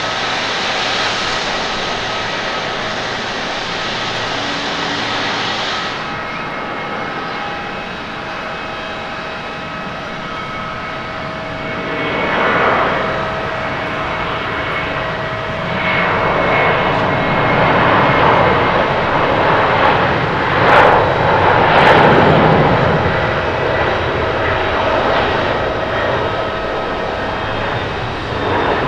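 Jet airliner engines: first a jet climbing away, then a Japan Airlines Boeing 767-300ER's twin turbofans at takeoff thrust through the takeoff roll and liftoff. Steady fan tones sit over a rushing noise that grows louder from about halfway through, with two short sharp clicks near the end.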